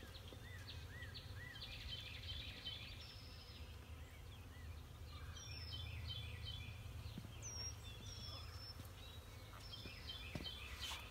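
Wild birds chirping and singing: short repeated chirps, a few arched notes and several clear whistled notes, over a steady low rumble.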